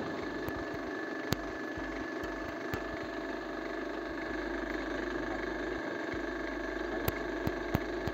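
Vertical drilling machine running steadily, its spindle turning with the feed halted at the depth stopper. A few sharp clicks sound over the hum.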